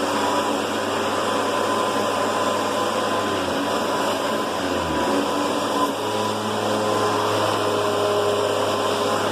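Hoover Convertible 4.8-amp upright vacuum running on its normal setting, its motor and brush roll drawing up a large pile of dirt and hair. The hum shifts in pitch a few times as the load changes.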